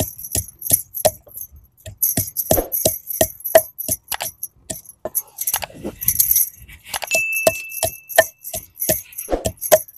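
Wooden pestle pounding raw mango pieces in a wooden mortar, about three strokes a second with a couple of short pauses, the bangles on her wrists jingling with each stroke.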